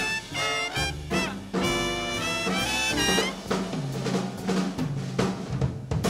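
Swing big band playing live: a brass section plays short chords and phrases over drum kit and a moving bass line.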